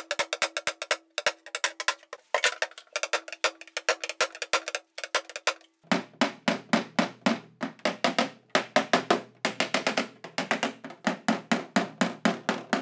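Hammering metal on metal, in quick runs of several strikes a second with short pauses, knocking a dent out of a car's floor panel. First one hammer is held on the dent and struck on its head with a second hammer to rough it out. About six seconds in it changes to lighter taps on the panel against a dolly held behind it, for fine shaping.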